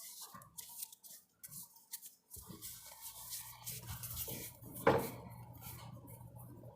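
Small clinks and taps of kitchen utensils and hands working sticky marshmallow slime, with one sharper knock about five seconds in. A low steady hum starts about two and a half seconds in.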